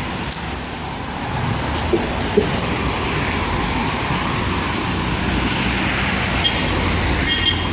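Steady road traffic noise from cars and buses on a busy street, with a constant low hum underneath that grows a little louder after about a second.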